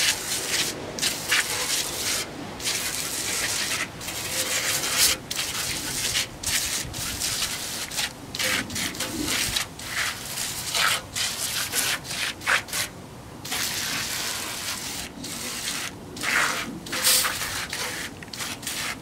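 Aerosol can of foaming degreaser spraying in many short hissing bursts, stopping and starting every second or so.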